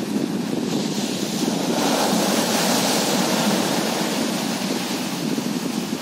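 Small sea waves breaking and washing up onto a sandy shore, a steady surf hiss that swells a couple of seconds in and then eases off.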